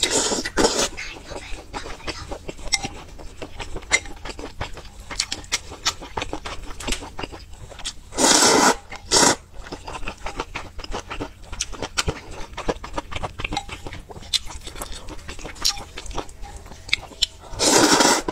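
Close-miked eating sounds: chewing and wet mouth clicks from a mouthful of spicy noodle soup, broken by three bouts of loud noodle slurping, at the start, about eight seconds in, and near the end.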